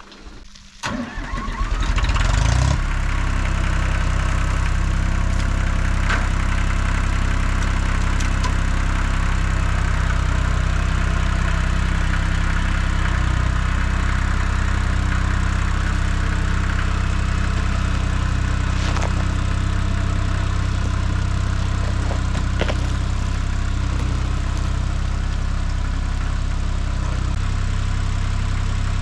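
Tractor engine starting about a second in, rising briefly, then running steadily with a low, even hum.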